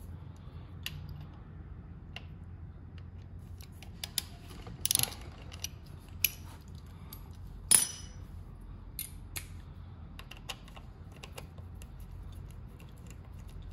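Hand tools working engine case cover screws on a Ducati Panigale V4S: a Torx T30 bit socket on a small ratchet, giving scattered metallic clicks and clinks, the sharpest about five seconds in and again near eight seconds.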